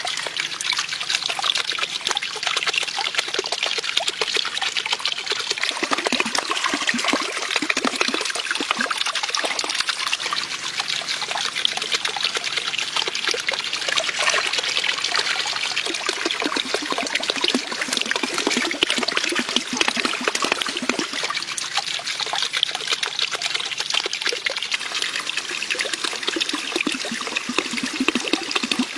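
Water trickling and splashing steadily as it runs over concrete into a small garden pond.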